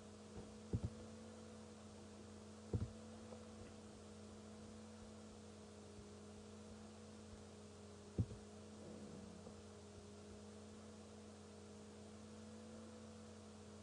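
Steady low electrical hum from the recording chain, with three soft low thumps spread through it.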